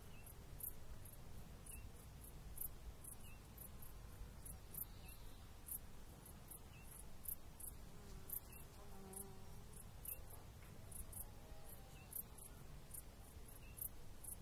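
Quiet garden ambience: a low wind rumble with a steady series of short, high-pitched ticks, about two or three a second.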